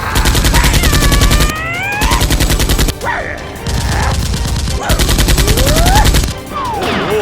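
Rapid automatic gunfire in four bursts of about a second each, with sliding whistle-like tones rising and falling over it.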